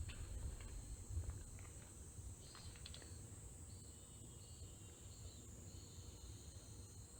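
Night insects, likely crickets, trilling in a steady high chorus, with a second, broken trill a little lower and a few brief chirps in the first seconds. A low rumble underneath is louder in the first second or so.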